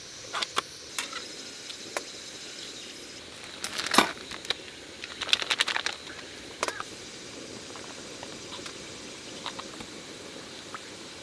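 Scattered clicks and clinks of ingredients and utensils being handled and dropped into a cooking pot over a low steady hiss, with a sharp knock about four seconds in and a quick run of clicks a second or so later.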